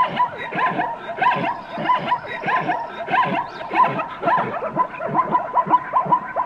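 An animal's rapid, continuous run of short barking, yelping calls, several a second, cutting off abruptly at the very end.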